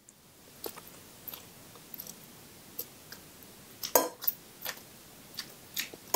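A person chewing a mouthful of instant fried noodles, with scattered short clicks of a fork and spoon in the bowl and a louder clatter about four seconds in.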